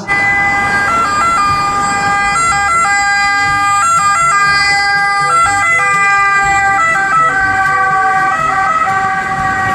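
Electronic ambulance siren sound: held electronic tones at several pitches that jump briefly up and back down every second or so.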